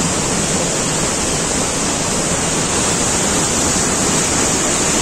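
Mountain waterfall rushing: a loud, steady wash of falling water with no breaks.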